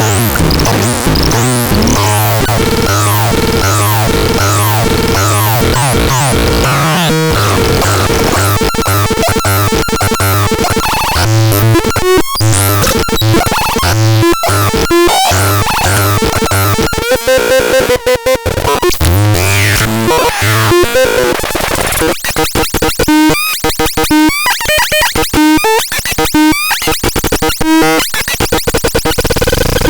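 Synthesizer playing a noisy, chaotic electronic pattern: a pulsing low bass note under repeated falling high-pitched sweeps, turning choppy and stuttering with abrupt cuts in the second half.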